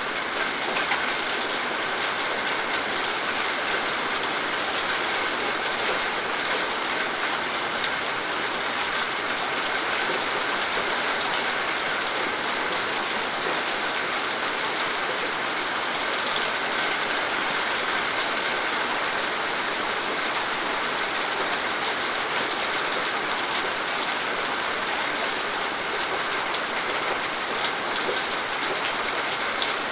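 Steady rain falling, an even hiss of many drops hitting a surface with faint individual patters.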